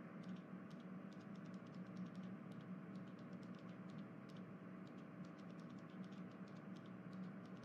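Faint background hum with soft, irregular clicks scattered through it, several a second.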